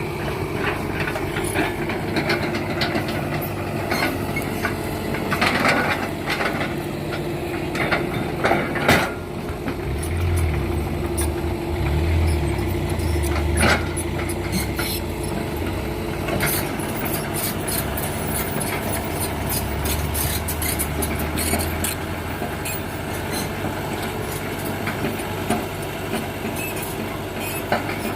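Heavy diesel machine engine running steadily, its low drone deepening for about twelve seconds from around ten seconds in, with scattered knocks.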